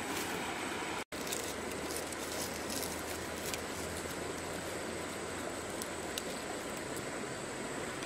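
Steady outdoor background noise, an even hiss with a few faint clicks. The sound cuts out for an instant about a second in.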